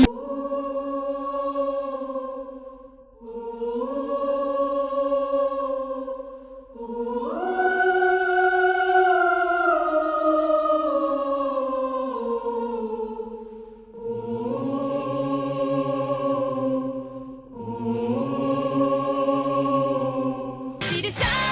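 Background music: slow choir-like singing in long held notes, in about five phrases. The longest phrase, in the middle, slides slowly downward. Near the end it cuts to busier, louder music.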